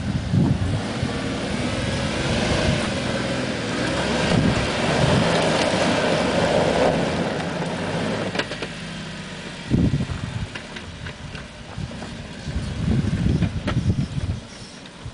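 Jeep Wrangler JK's V6 engine running hard under load as the 35-inch mud tyres work through deep muddy ruts on a hill climb. The engine is loudest for the first eight seconds or so, then drops lower and quieter, with scattered knocks and thumps.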